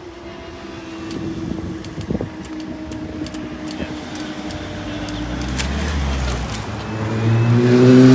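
Level-crossing barriers rising with a steady mechanical hum and scattered clicks. Then a car, a BMW X5 SUV, pulls across the crossing, its engine note rising as it accelerates and loudest near the end.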